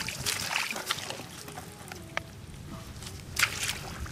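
Shallow muddy water sloshing and splashing in short, irregular bursts, the clearest about three and a half seconds in.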